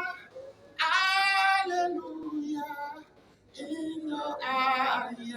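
A woman's voice singing long, held gospel praise phrases with a wavering pitch, in two loud phrases with a short pause between them.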